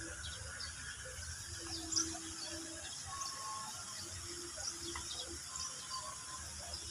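Outdoor ambience with small birds chirping: many short, high chirps scattered through a steady low rumble.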